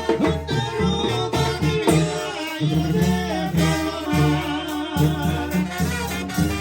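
Live Mexican banda, a brass band, playing a song: short low bass notes in a steady rhythm under sustained melody notes from the winds.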